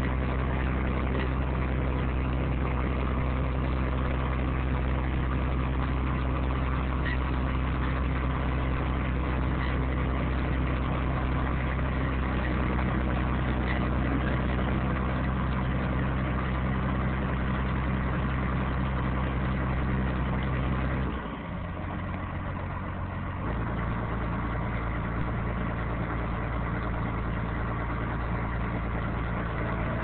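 John Deere 850 crawler bulldozer's diesel engine running steadily. About two-thirds of the way through, the sound drops abruptly in level. A couple of seconds later it settles into a different steady note.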